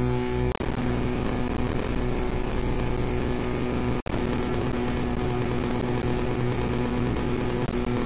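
Very short loops of multitrack audio playing back in REAPER, giving a steady buzzing drone of held tones over noise. The texture shifts with a click about half a second in, and the sound cuts out for an instant at about four seconds.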